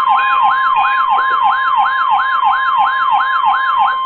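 An emergency alert tone: a steady high tone with a fast wailing siren sweep laid over it, about three sweeps a second. The siren sweep stops near the end and the steady tone holds on alone.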